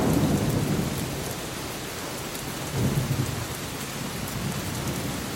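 Steady rain falling, with low rumbles of thunder: one dying away at the start and another rolling in about three seconds in.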